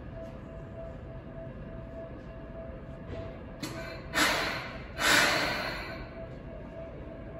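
Two sharp hisses of compressed air being let out by an electric commuter train's air system, the second about a second after the first. Each starts suddenly and fades over about a second, above the steady hum of the station.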